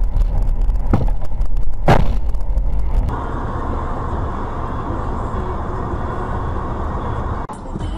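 Vehicle driving noise, a heavy low rumble broken by two sharp knocks about one and two seconds in, the second the louder. About three seconds in it changes to a steadier, quieter running noise with a faint hum.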